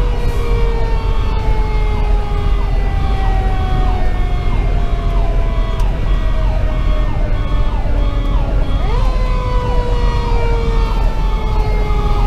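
Fire engine sirens: a Federal Q2B mechanical siren winds slowly down in pitch, is brought back up about nine seconds in and coasts down again. Under it, a Sho-Me Powercall electronic siren cycles quickly, about twice a second. Beneath both runs the rumble of the truck's 470 hp Detroit Series 60 diesel engine and road noise.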